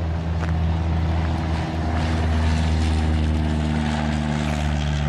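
A Boeing B-17G Flying Fortress's four Wright R-1820 Cyclone radial engines running as the bomber rolls along the runway, a steady propeller drone that grows a little louder from about two seconds in.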